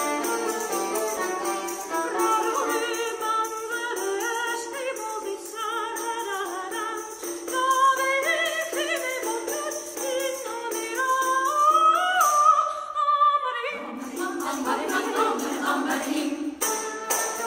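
A women's choir singing with oud, viola and hand percussion, in a Sufi-inspired modal style. About twelve seconds in, a melody line climbs to a high held note, then breaks off briefly before the ensemble comes back fuller.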